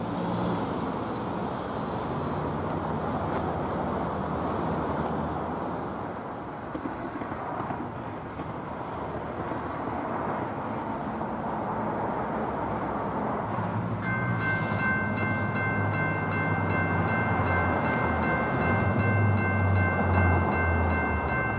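Road traffic noise at a railroad grade crossing, then about two-thirds of the way in the crossing's GS Type 2 electronic bell starts ringing steadily as the crossing activates for an approaching train.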